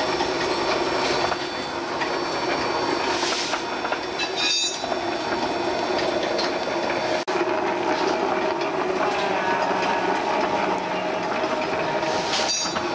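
Compost filling machine running steadily along a mushroom shelf, filling it with compost: a continuous mechanical drone with two brief dips.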